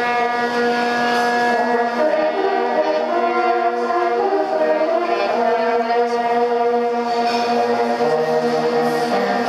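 Ensemble of hunting horns playing in harmony: a chord held for about two seconds, a few seconds of moving chords, then a long held chord.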